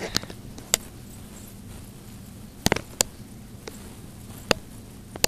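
Handling noise: a handful of sharp, scattered clicks and taps over a faint steady low hum, as the camera is moved about close over a cardboard box.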